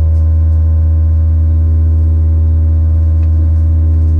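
Steady low drone inside the cabin of an Airbus A320neo standing on the ground, with several steady tones layered above it and no change in pitch.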